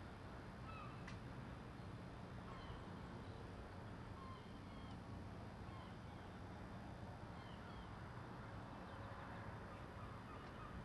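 Gulls calling: short, scattered calls, several at a time, over a steady low machinery hum.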